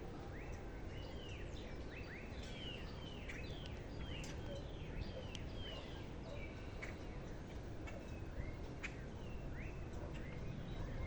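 Birds chirping: many short, quick calls that drop in pitch, repeated several times a second, over a steady background hum, with a few isolated clicks.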